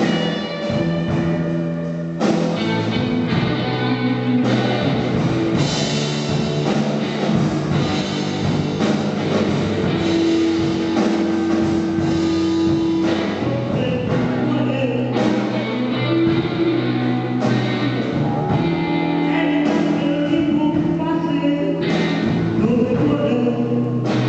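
Rock band music with guitar and drums, with one long held note in the middle.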